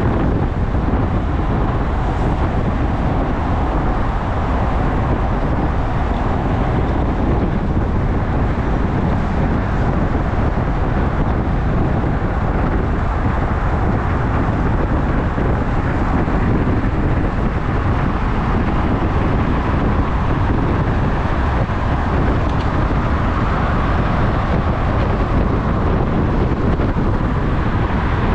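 Steady rush of wind buffeting a handlebar-mounted camera microphone on a road bicycle riding at about 45 km/h, mixed with road and traffic noise.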